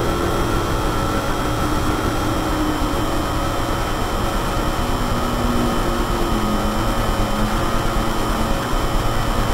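Live electronic music from a wearable Exoskeleton controller: a loud, steady noise drone with fixed high tones running through it, and faint low tones drifting in and out around the middle.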